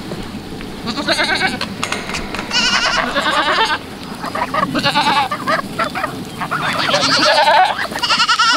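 Goats bleating: several wavering calls, about a second each, one after another and sometimes overlapping.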